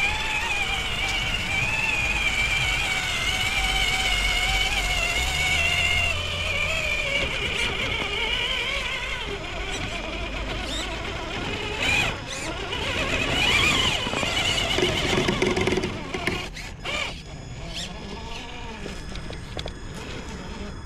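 Traxxas TRX4 RC crawler's electric motor and geared transmission whining, the pitch wavering up and down with the throttle. From about two-thirds of the way in the whine eases and sharp clicks and scrapes of the truck crawling over the ground take over.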